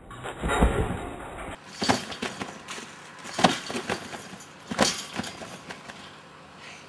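Trampoline bouncing: a heavy landing in the first second, then three sharp landings on the mat about a second and a half apart, each followed by a few smaller rattling hits.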